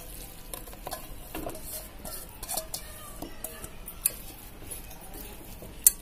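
Marinated chicken pieces handled and laid into a pot by hand: wet squelching and scraping, with a couple of sharp clicks of the steel bowl knocking the pot's rim, one midway and one near the end.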